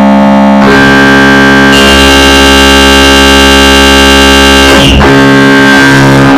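Dark MIDI rendering of a Samsung Galaxy S7 ringtone through the FluidR3 GM soundfont: a very loud, dense wall of sustained synthesized notes stacked into huge chords. The chord thickens about half a second in and again with a bright high layer near 2 s, then thins near 5 s.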